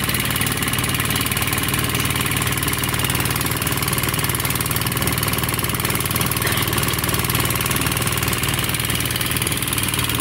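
A boat engine running steadily while the boat is underway, a continuous even drone with a fast pulse.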